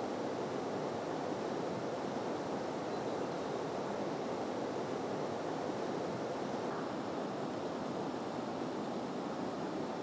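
Steady rush of flowing water, an even noise without breaks.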